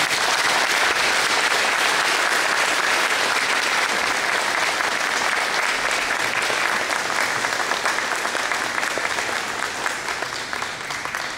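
Audience applauding: dense clapping that starts suddenly and gradually dies down near the end.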